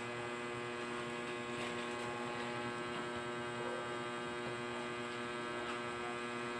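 Steady electrical hum made of many even tones, unchanging throughout, with faint scattered ticks over it.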